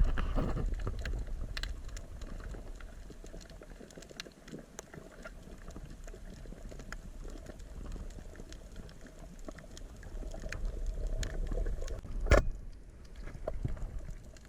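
Rumbling water noise with scattered small clicks, fading over the first few seconds, and one sharp knock about twelve seconds in.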